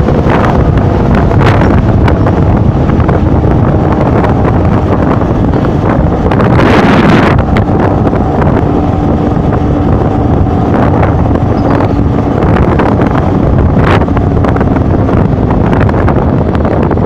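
Wind buffeting the microphone on a moving motorcycle, with the motorcycle's engine running steadily underneath. There is a louder gust about seven seconds in.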